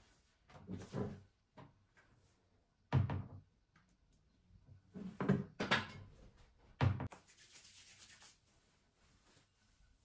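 Household handling sounds: a series of dull knocks and thuds, like a cupboard door or objects being set down, the sharpest about three seconds in and near the seventh second. A short hiss follows.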